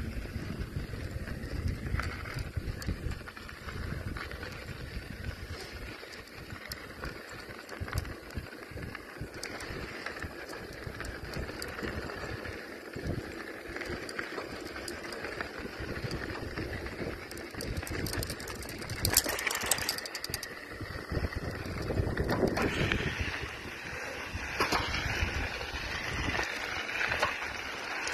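Wind buffeting the microphone while riding a bicycle, with the tyres rolling over the road surface and a stretch of crackling about two-thirds of the way through.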